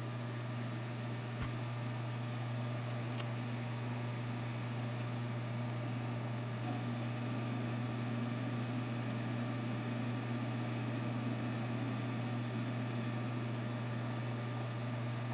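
Metal lathe running at a steady speed with a steady low hum while its tool turns a taper on an O1 tool-steel shaft.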